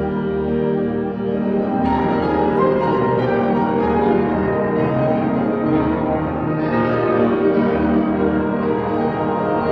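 Solo jazz grand piano playing chords whose notes ring on and overlap, in a large stone church.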